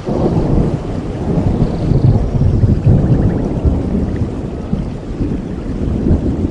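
Thunder rumbling over steady tropical rain, swelling in the first couple of seconds and slowly easing off. A few faint bird chirps sound about two seconds in.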